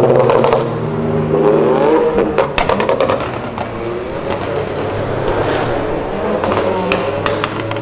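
Cars accelerating past, their engines revving with the pitch rising and falling. There are two clusters of sharp crackles, one about two and a half seconds in and one near the end.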